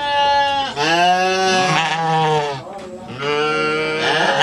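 Sheep bleating: three long bleats one after another, each rising and then falling in pitch, the middle one the longest.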